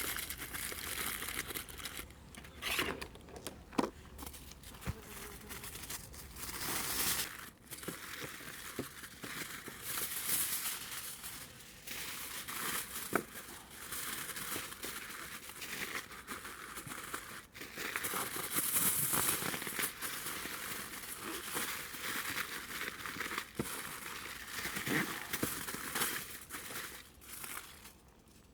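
Irregular rustling and crinkling handling noise, with a few sharp clicks scattered through it.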